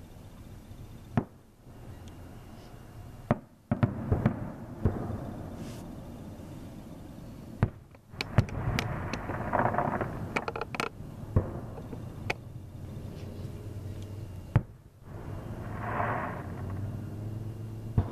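Aerial fireworks going off, with sharp bangs at irregular intervals, several coming close together about four seconds in, and longer noisy stretches a little past halfway and again near the end.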